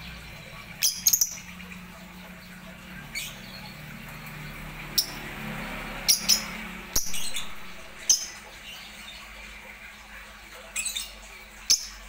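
Lovebirds giving short, shrill chirps and squawks, about a dozen scattered calls, with a quick cluster about a second in and another near the end.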